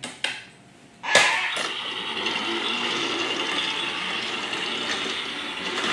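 Battery-powered TrackMaster toy train engine running on plastic track: a sharp knock about a second in, then its motor runs with a steady whir.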